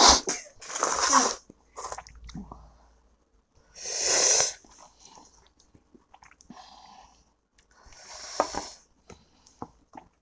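A man breathing hard through the mouth in a few loud, hissing, wheezy gasps, with the strongest about four seconds in. These are breaths of someone whose mouth is burning from an extremely hot chili chip.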